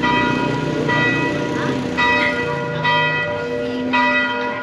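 Church bell tolling, struck about once a second, each strike ringing on with several steady tones.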